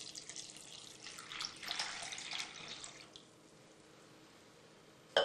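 Water being poured into a pressure cooker, splashing and trickling until it stops about three seconds in. A single sharp clink comes near the end.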